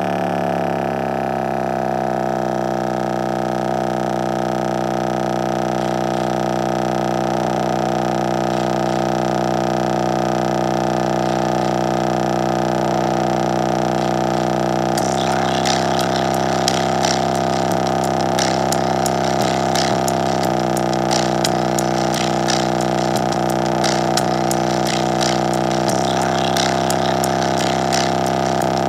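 JBL Charge 4 portable Bluetooth speaker playing a bass test track loud, its passive radiator pumping: a deep, buzzy, droning bass that slides down in pitch at the start and then holds steady. About halfway through, a crackling rattle joins over the drone.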